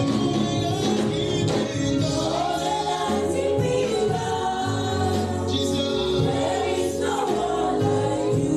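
Gospel worship music: a choir singing over instrumental backing whose low notes shift every second or two.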